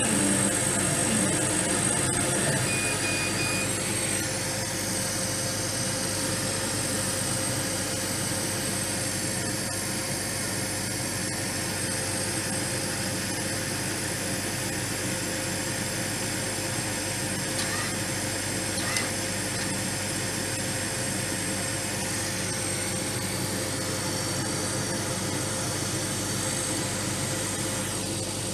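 Steady machine hum of a running 50W Chinese CO2 laser cutter, with a constant mid-pitched tone over an even whooshing noise, slightly louder in the first few seconds.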